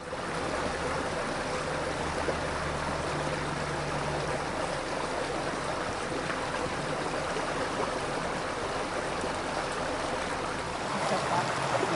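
Small, shallow creek running over gravel and stones: a steady rush of water. A faint low hum lies under it for the first several seconds and then fades out.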